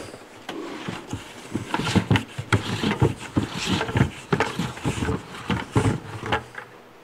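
Five-gallon plastic bucket being worked loose from under a cyclone separator's lid, with irregular knocks and scrapes of plastic against the lid and plywood mount.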